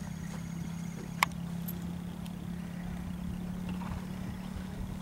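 A steady low hum with one sharp click a little over a second in.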